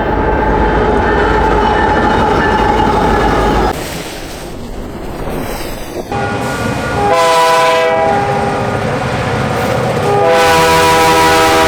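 Train rolling by with wheel rumble and clatter for the first few seconds, cutting off abruptly. A locomotive's multi-chime air horn then sounds a chord briefly about 7 seconds in, and again in a long blast from about 10 seconds in.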